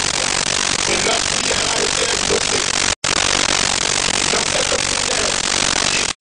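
Loud, steady static hiss with faint pitched snatches buried beneath it. The sound cuts out completely for an instant about halfway through.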